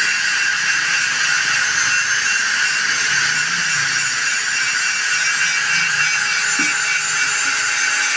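Power tool running steadily at high speed, a constant high hissing whine with no break.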